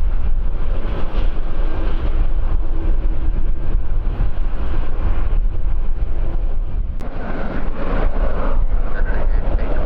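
Strong wind buffeting the microphone, a steady low rumble with gusty noise over it.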